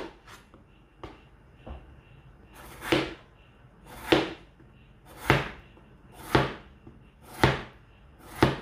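A wide-bladed kitchen knife slicing a raw potato on a wooden cutting board, one slice about every second. Each cut ends in a knock of the blade on the board.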